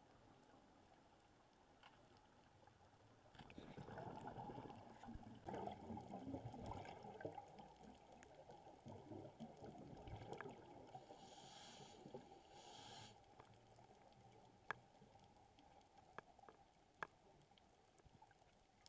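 Scuba diver's breathing heard faintly underwater: several seconds of rumbling exhaled bubbles, then a short hiss of an inhale through the regulator. A few sharp clicks sound near the end.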